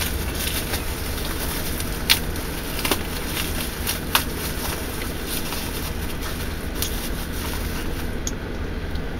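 Steady low rumbling background noise with a few sharp clicks, about two, three and four seconds in, from metal parts being handled.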